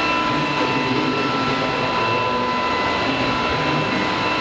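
Steady high-pitched whine of several held tones over the continuous murmur of a crowd in a large hall.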